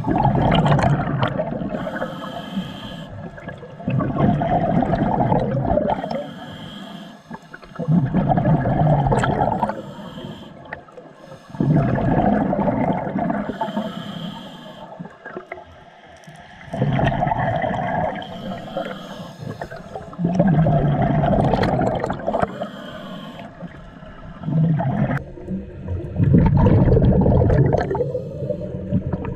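A scuba diver breathing through a regulator. Each exhale releases a burst of rumbling, gurgling bubbles about every four seconds, and a short high hiss from the regulator sounds on the inhales between them.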